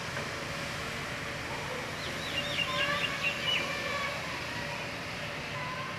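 A bird chirping in a quick run of high, rapidly warbling notes for about a second and a half, starting about two seconds in, over steady outdoor background noise.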